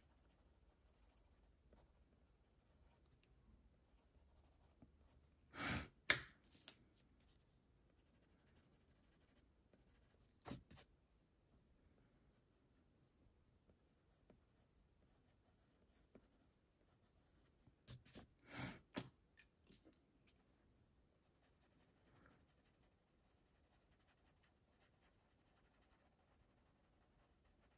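Faint scratching of a Faber-Castell Polychromos coloured pencil shading on paper. A few brief louder noises come about six, ten and eighteen to nineteen seconds in.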